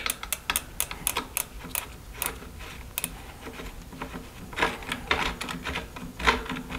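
Irregular sharp metallic clicks and rattles of a wrench working on a mountain bike's pedal spindle at the crank arm, as the pedals are taken off and new ones fitted. The clicks come thick in the first few seconds, then in a short cluster about five seconds in.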